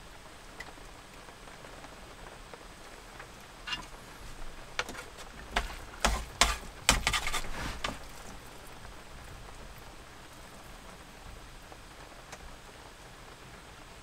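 Light rain pattering steadily on the camper, with a run of sharp clicks and taps from chopsticks against a food box between about four and eight seconds in as the food is mixed.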